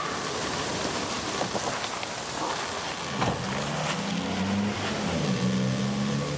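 Lada Largus car pulling away on a wet road: a steady hiss throughout, with the engine's low hum coming in about three seconds in and stepping up and down as it drives off.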